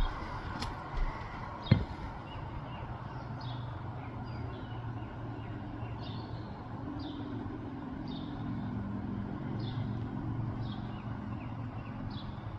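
Outdoor ambience: a steady low rumble like distant traffic, with a faint, short, high chirp repeating about once a second, and two sharp clicks in the first two seconds.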